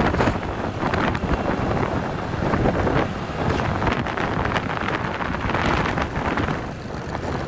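Wind buffeting the microphone of a moving vehicle, a loud, gusting rush with the vehicle's road noise beneath it.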